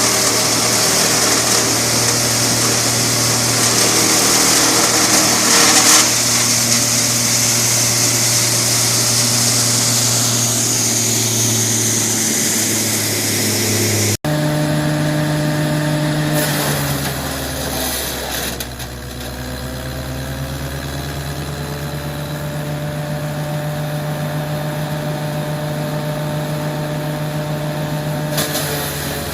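Wood crusher machine running with a steady motor hum. After an abrupt cut about fourteen seconds in, its pitch sags for a couple of seconds and then climbs back to a steady run.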